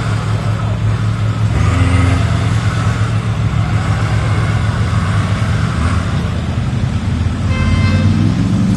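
Modified off-road 4x4's engine running steadily under load as the truck drives across a slope, rising in pitch as it revs up near the end.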